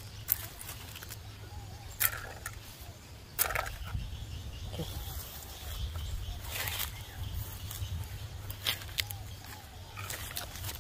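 Scattered rustles and a few sharp clicks from plastic toy train track being handled and set down in grass and dry leaves, over a low steady rumble.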